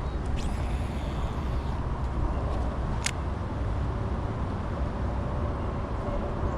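Wind buffeting the microphone: a steady low rumble, with a single sharp click about three seconds in.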